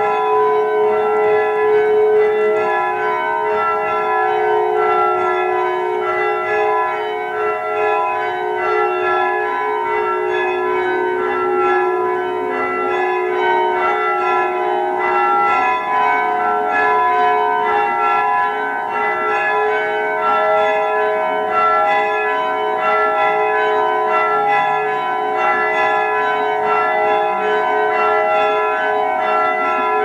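Church bells being change-rung by hand on ropes: a continuous stream of overlapping strokes from several bells, each note ringing on into the next.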